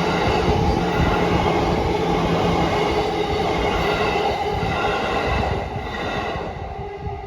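A train running past a level crossing, loud and close, then fading away over the last couple of seconds, with the crossing bell ringing.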